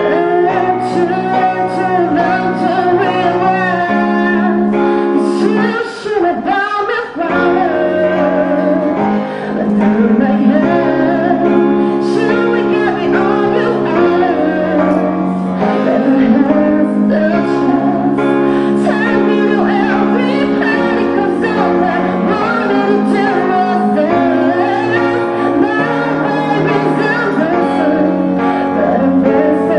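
Electronic keyboard played live: held chords that change every couple of seconds, with a wavering melody line above them. The music dips briefly about six seconds in.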